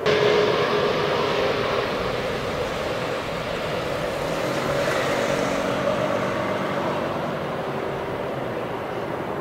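Jet engines of a Boeing 777 on final approach to landing: a steady rushing noise with a faint whine in it, which starts suddenly at a cut.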